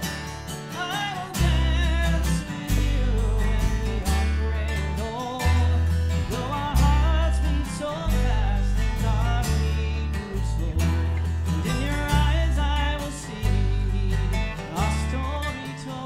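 Live country band playing an instrumental break of a waltz: acoustic guitars strumming over low bass notes, with a lead melody line bending and wavering in pitch above.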